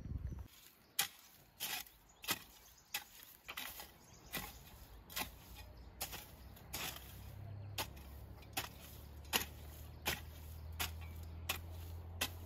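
A steady series of sharp knocks or taps, a little more than one a second. A low hum comes in about halfway through and carries on underneath.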